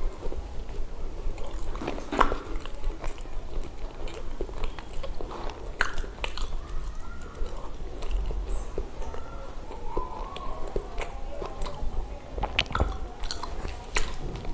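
Close-up eating of pav bhaji, soft bread rolls and mashed vegetable curry: steady chewing and biting with many wet mouth clicks and smacks.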